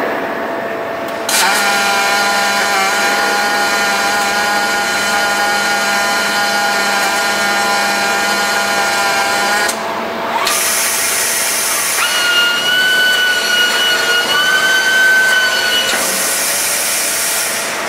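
Kawasaki robotic welding cell at work, giving a steady, machine-like whine in two long stretches of several seconds each, with a short break between them; the second stretch sits at a different pitch from the first.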